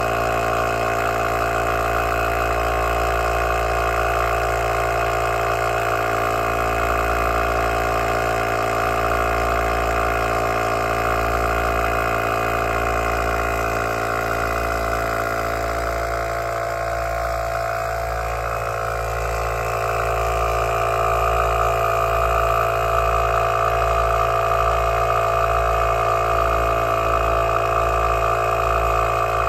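Heyner Big Air 40L Pro 12-volt tyre compressor running steadily under load while inflating a flat van tyre, its motor and piston giving a continuous mechanical hum. The level dips slightly a little past halfway, then picks up again.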